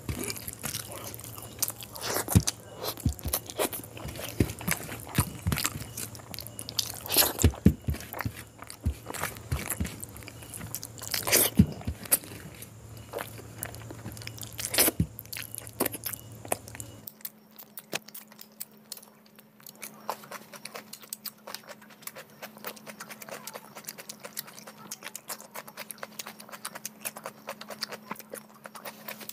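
Close-miked eating sounds: lip smacks, wet chewing and finger-sucking as mashed quail egg and curry gravy are eaten off the fingers, in many sharp clicks. A little over halfway through the sound drops suddenly to quieter, sparser mouth clicks.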